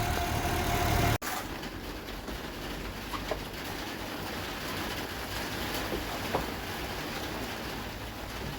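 Vauxhall Viva HC's 1256 engine idling steadily for about a second, then an abrupt cut to a much quieter steady background with a few faint short chirps.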